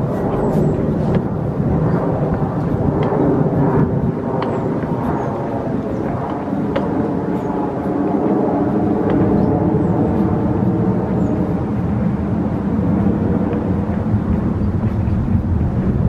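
Outdoor background noise: a loud, steady low rumble with a few faint clicks and brief high chirps.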